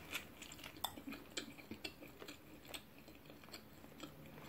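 Faint, close chewing of a mouthful of naan dipped in saag, with irregular soft clicks from the mouth and lips several times a second.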